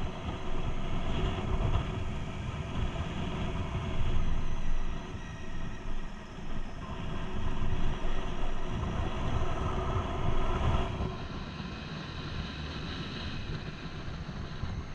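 Motorcycle engine running while riding along, with wind rushing over the helmet-mounted microphone. The engine note eases back about eleven seconds in.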